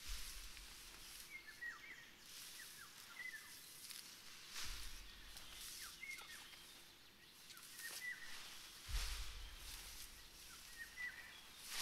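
Small woodland birds chirping: short, falling calls repeated every second or so. A rush of wind with a low rumble comes at the start, again about halfway through and near the end.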